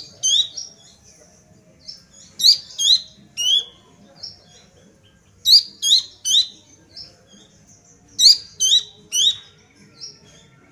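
A juvenile Horsfield's babbler (pelanduk semak, cingcoho) singing actively. It gives short phrases of three or four sharp, high whistled notes, each note sweeping up and then down. A phrase comes about every three seconds, with softer single notes between.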